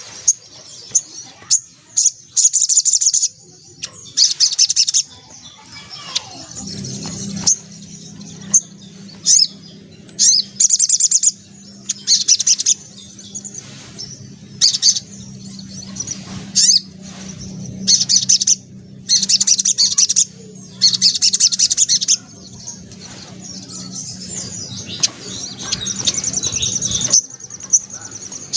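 Sogok ontong sunbird singing in full song: repeated bursts of rapid, high-pitched chattering trills, each about half a second to a second long, with softer twittering in between. A low steady hum sits underneath from about a quarter of the way in until near the end.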